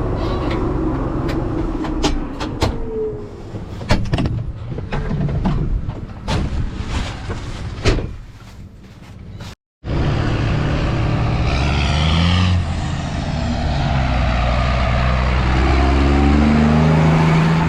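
Heavy farm machinery engine running, with many sharp knocks and rattles over it in the first half. After a sudden break, a steady engine runs on and rises in pitch twice, the second time near the end.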